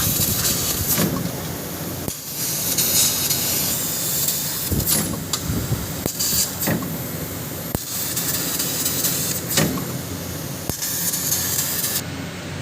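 CNC laser cutting machine running, its assist gas hissing in bursts that start and stop every second or two over a steady machine hum, with a few sudden breaks.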